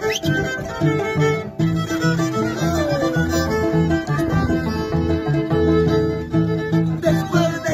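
Andean string music: a violin playing a melody over the plucked bass and chords of a Peruvian Andean harp, with a short downward slide in the melody about three seconds in.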